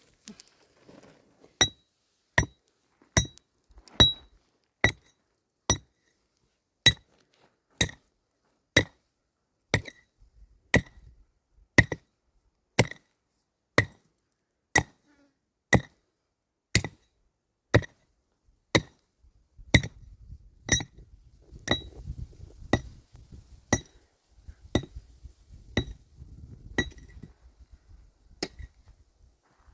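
Hammer driving nails into wooden planks, a steady blow about once a second, each strike with a short metallic ring. About thirty blows in all.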